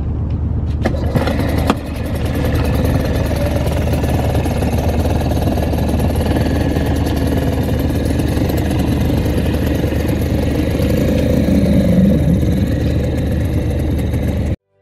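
Small outboard motor on an inflatable dinghy running steadily, with a few clicks and a brief dip in the first couple of seconds.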